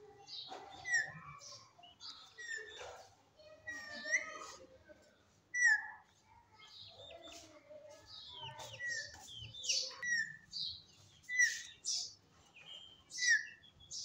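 Male Alexandrine parakeet chirping and whistling in short calls that glide sharply up or down in pitch, roughly one a second, with quieter chattering between them.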